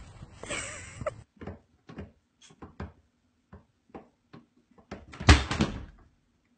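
A short rustling scuffle, then a series of light, irregular knocks and taps, and a louder thump about five seconds in.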